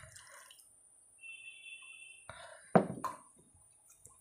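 Curry gravy pouring from a glass bowl onto rice on a metal plate, with wet drips and splats, then a louder thump and wet handling sounds a little over two seconds in.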